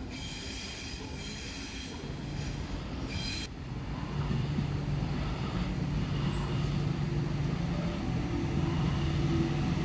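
High-pitched squeal of electric train wheels on the rails, cut off abruptly a few seconds in. Then a Sydney Trains Waratah double-deck electric train approaches, its traction motors humming steadily and growing louder.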